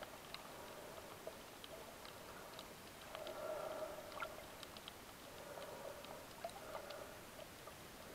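Faint, muffled underwater sound picked up through an action camera's waterproof housing: a steady hiss with a dull tone that swells every second or two, loudest about three to four seconds in, and scattered small clicks.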